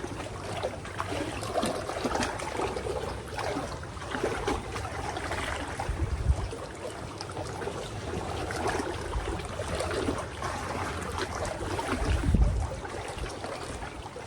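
Shallow water trickling and flowing in a steady wash, with two brief low rumbles on the microphone, about halfway through and near the end.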